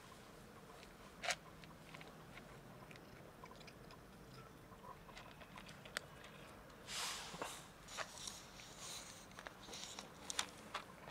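A cat crunching dry kibble: faint, irregular crunches and clicks, with a few louder ones about a second in and in the second half.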